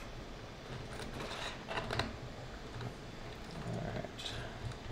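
Scattered light clicks and scrapes of a metal circular power-cable connector being lined up and worked onto its socket on a seismic data logger, a few separate ticks with gaps between them.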